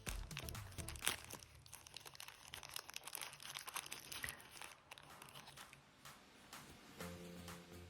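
Packaging crinkling and rustling with irregular small clicks, as accessories are unwrapped and taken out of the box by hand. Background music comes back in near the end.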